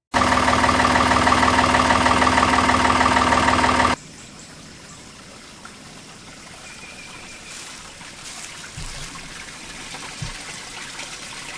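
A backhoe engine running loud and steady for about four seconds, cut off abruptly. After it comes a quiet, steady trickle of water flowing through the culvert beneath the bridge.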